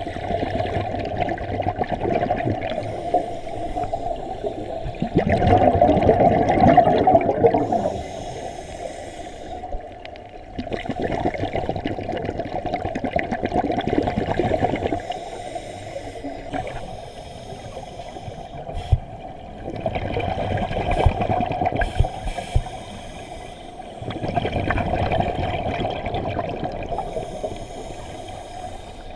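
Scuba diver's breathing through a regulator, heard underwater: long spells of exhaled air bubbling and gurgling, several seconds each, with quieter stretches between breaths.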